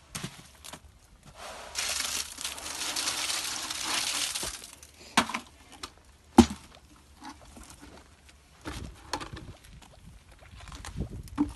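Concrete mix being shovelled into buckets: a shovel scrapes and scoops, and gritty concrete slides into a bucket for about three seconds, followed by scattered knocks of shovel and bucket, the loudest a sharp clank about six seconds in.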